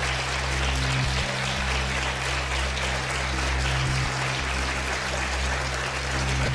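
Studio audience applauding steadily over a low, droning music bed.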